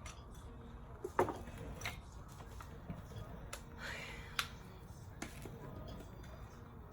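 Scattered clicks and clinks of hand tools on metal during engine work. The sharpest comes about a second in, with a few lighter ones after it.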